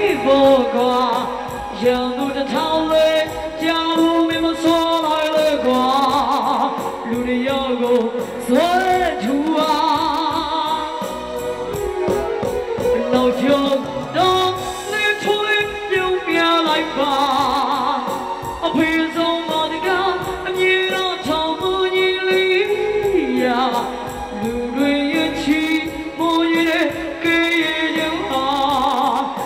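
A woman singing a song into a microphone over backing music, her held notes wavering with vibrato.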